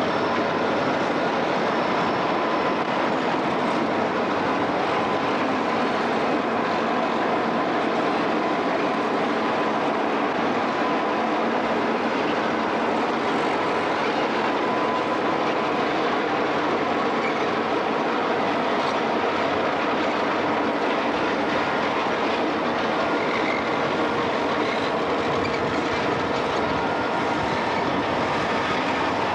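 Grand Trunk diesel freight locomotives passing close by at a steady pace, their engines running and their wheels rolling on the rails in an even, continuous din.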